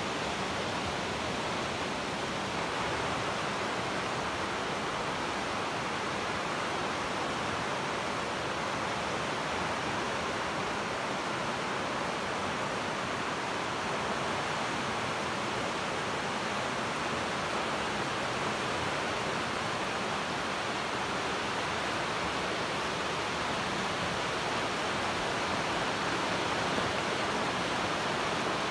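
Steady rushing of the Río Nela in flood, a swollen river running fast, growing a little louder near the end.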